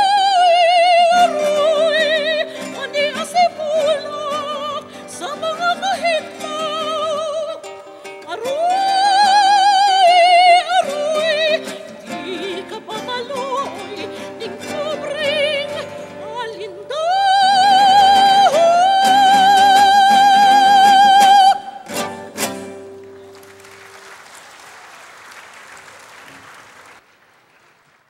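A high, operatic-style singing voice with wide vibrato over instrumental accompaniment. The song ends on a long held high note that cuts off, followed by a few seconds of faint noise.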